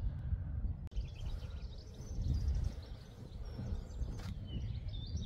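Outdoor ambience: low wind rumble on the microphone with small birds chirping and twittering. The sound cuts out for an instant about a second in, and there is a single sharp click past the four-second mark.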